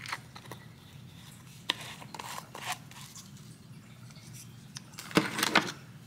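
Small plastic jar of acrylic nail powder being handled: a few light clicks and taps, then a louder brief rubbing scrape about five seconds in as the jar is moved off the table.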